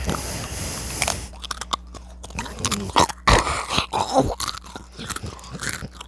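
Chips being bitten and chewed close to the microphone: a run of crisp, uneven crunches, the loudest bites about three seconds in.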